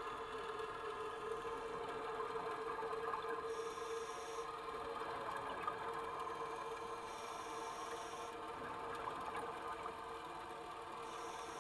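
Underwater ambience: a steady hum, with a faint hiss that comes and goes about every four seconds.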